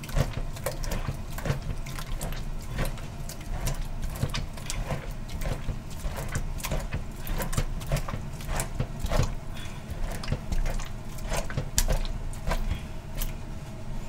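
Wet squelching and squishing as handfuls of maesaengi (seaweed fulla) are kneaded and squeezed by hand in a plastic basin, washing the murky water out of the seaweed. The sounds come as irregular short clicks, a few a second.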